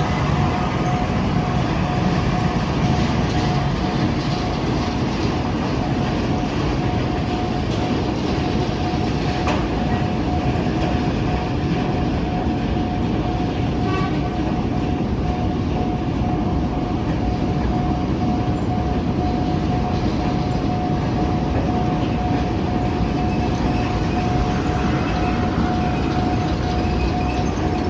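A narrow-gauge sugarcane train led by a Diema diesel locomotive running over a level crossing, a steady low rumble of engine and wheels on the rails. A thin steady high tone sounds throughout.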